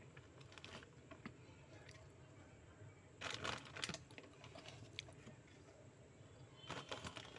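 Large spoon tipping gram flour into a steel bowl, scraping and clicking against the metal in two short bursts, faint overall.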